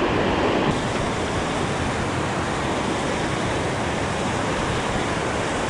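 Steady rushing of a snowmelt stream cascading over rocks.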